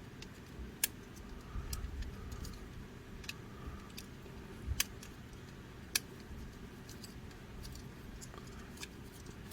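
Irregular small clicks and taps of a transforming robot toy figure's parts being moved and snapped into place by hand, over a low rumble of handling.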